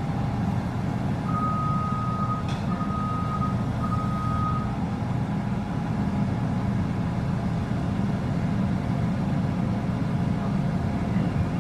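Bulldozer's diesel engine running steadily under a low rumble. Three beeps at one pitch from a reversing alarm sound between one and five seconds in.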